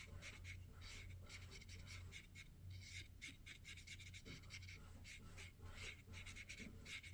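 Faint, irregular strokes of a watercolor brush on wet paper, many short soft brushing sounds.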